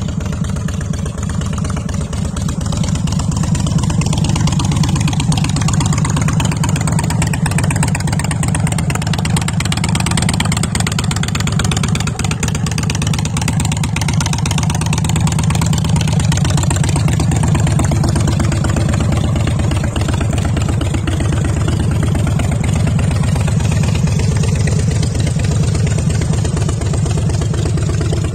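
Harley-Davidson FXD Dyna's air-cooled V-twin engine idling steadily, with a low, even pulsing beat.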